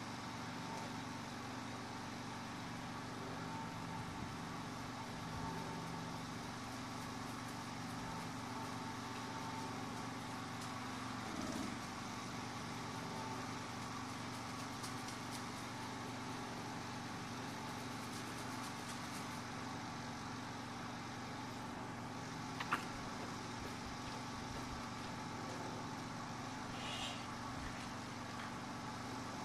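Engine of a roof-cleaning spray rig running steadily while the roof is sprayed, with one short sharp click about two-thirds of the way through.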